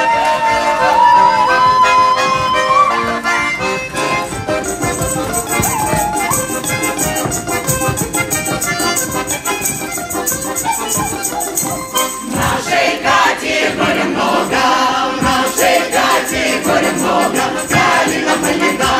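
Accordion playing a lively Russian folk tune, joined about five seconds in by a rhythmic shaken rattle; the music grows fuller about twelve seconds in.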